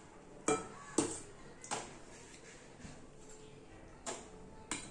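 Metal serving spoon clinking against a steel bowl and plate as fish curry is ladled out: five sharp clinks, three in the first two seconds and two more near the end.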